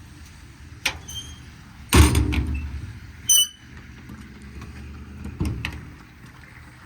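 Metal service-body compartment door being handled: a latch click, then a loud slam about two seconds in, a short high squeak, and another knock later on.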